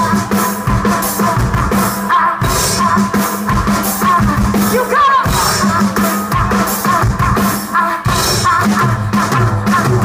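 Loud live rock music from a noise-pop band: pounding drums over a sustained low tone, with a woman singing.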